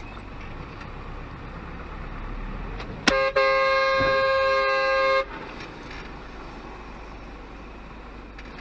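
A car collision: a sharp crash about three seconds in, followed at once by a loud vehicle horn held for about two seconds. Steady engine and road noise from the dashcam vehicle runs underneath.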